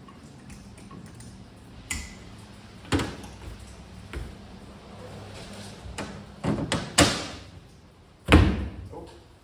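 Irregular knocks and thumps as the old rear window glass is worked out of a Chevrolet C10 pickup cab: single knocks about 2 and 3 seconds in, a quick cluster around 6 to 7 seconds, and the heaviest thump near the end.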